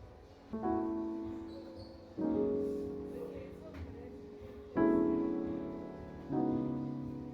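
Background music: slow piano chords, a new one struck about every two seconds and each left to ring out and fade.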